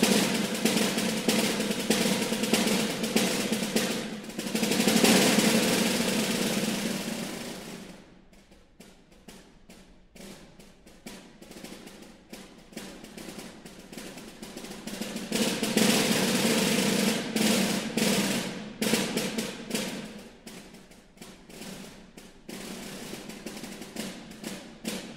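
Solo snare drum played with sticks: a loud sustained roll that swells about five seconds in, then quieter separate strokes, a second loud roll around the middle, and lighter scattered strokes near the end.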